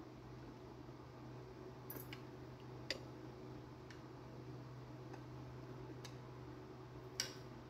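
A serving spoon clinking against a plate and dish as curry is dished out: about five separate light clinks, the loudest near the end, over a faint steady low hum.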